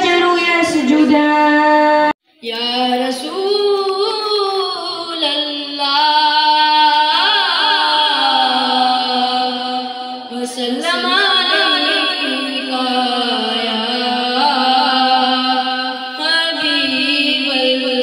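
A girl's voice singing unaccompanied into a microphone over the hall's PA, a slow chant with long held, ornamented notes. The sound cuts out briefly about two seconds in.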